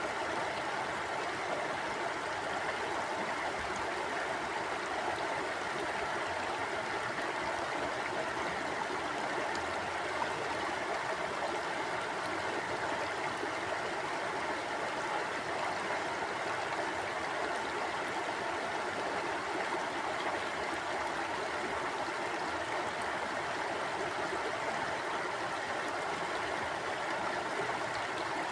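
River water flowing steadily over stones, an even rushing babble with no breaks.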